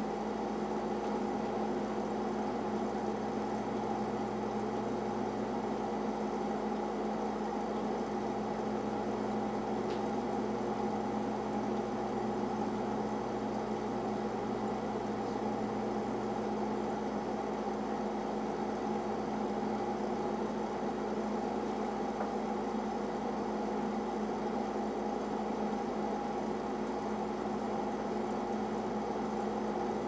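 Boiler room room tone: a Lynx condensing boiler and its plumbing running steadily, a constant machine hum with several steady tones over a low rushing noise.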